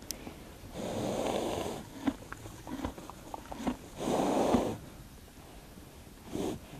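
A horse breathing hard through its nostrils right at the microphone: two long breaths about three seconds apart, with small clicks of hay being chewed in between.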